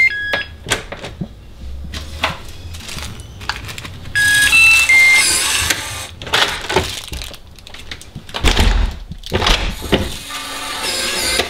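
Yale Conexis L1 smart door lock playing a short tune of electronic beeps of different pitches as it is operated, about four seconds in, with a few beeps right at the start. Clicks and knocks from the lever handle and lock mechanism as the handle is worked, and low thuds near the end.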